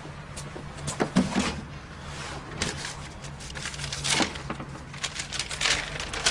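Things being rummaged through and moved about on a shelf: a string of knocks, clunks and rustles, the loudest knock about a second in and a busier clatter in the second half, over a faint steady hum.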